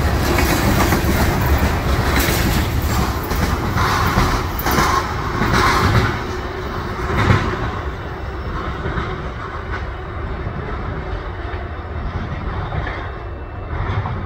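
Freight train cars, flatcars loaded with large open-top containers, rolling past with their wheels clicking over the rails. The rear of the train goes by about seven or eight seconds in, and the rumble fades as the train moves away.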